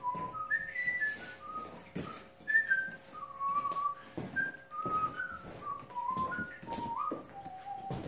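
A person whistling a tune, a run of short held notes stepping up and down, with scattered knocks and bumps alongside.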